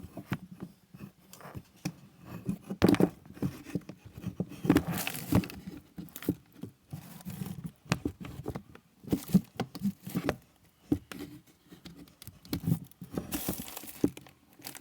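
Irregular handling noises: knocks, bumps and rustling, as of things being moved about and packaging crinkled, with a few sharper knocks about 3, 5 and 13 seconds in.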